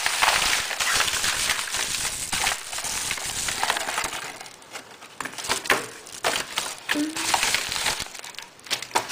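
Clear plastic packaging bags and a white padded envelope rustling and crackling as they are handled and opened, with many small sharp crackles, easing off briefly near the middle and again near the end.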